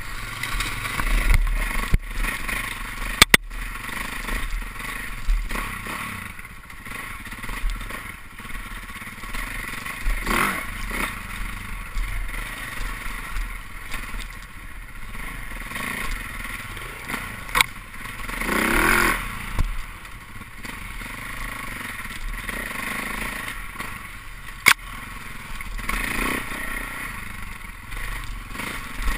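Off-road dirt bike engine running and revving up and down as it is ridden over rough trail, with rattling and scraping from the bike and a few sharp knocks.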